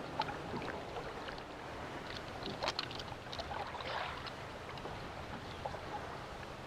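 Water lapping at a kayak's hull, with scattered small clicks and knocks from handling on board.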